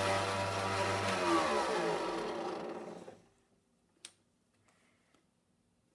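Small benchtop table saw running, then switched off about a second in and spinning down, its whine falling in pitch until the blade stops about three seconds in. A single sharp click follows about a second later.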